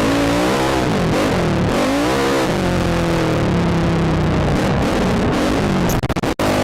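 ATV engine running hard, its pitch rising and falling twice as the throttle is worked, then holding steadier. Near the end the sound cuts out sharply a few times.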